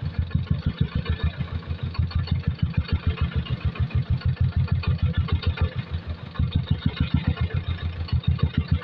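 Single-cylinder diesel engine of an E-taen (Thai farm utility vehicle) running with a steady, rapid chugging beat as the vehicle reverses.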